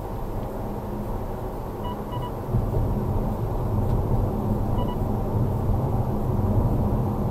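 Car driving, heard from inside the cabin: steady low engine and tyre rumble that grows a little louder about two and a half seconds in. Two quick short beeps come about two seconds in and another near five seconds.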